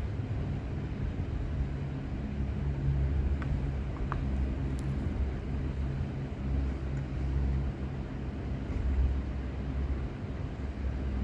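A steady low rumble, with a few faint light clicks a few seconds in.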